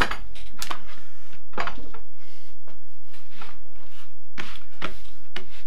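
A thin leather offcut being handled and laid down on a wooden workbench: irregular soft scuffs and rubs with light knocks, the loudest right at the start.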